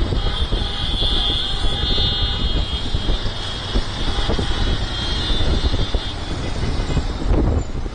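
A large pack of motorcycles running together at riding speed, a dense engine drone with heavy low rumble. A high steady tone sits over it for the first few seconds and then fades.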